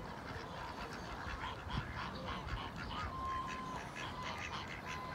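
Domestic geese and ducks calling on a pond: many short, thin calls and quacks scattered throughout, with one steady held note a little past halfway.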